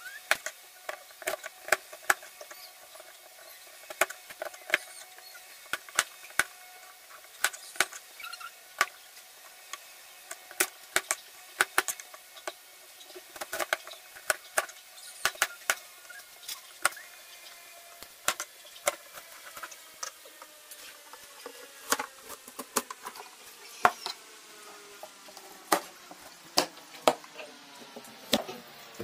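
Kitchen knife cutting peeled taro into strips on a plastic cutting board: sharp, irregular knocks of the blade through the root onto the board, about one or two a second.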